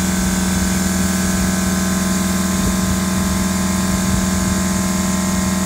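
Gravity-feed paint spray gun hissing steadily as it sprays compressed air and paint, over a steady low machine hum.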